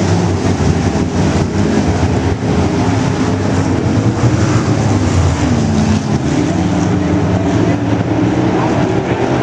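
A pack of IMCA Modified dirt-track race cars running at speed, their V8 engines sounding together, with the engine notes wavering up and down as the cars pass and go through the turn.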